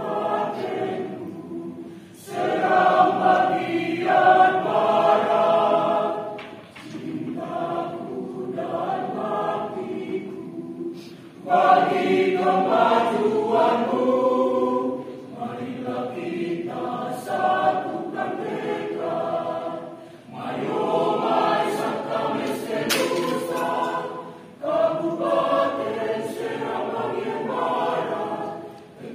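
Mixed choir singing, in phrases with short breaks between them.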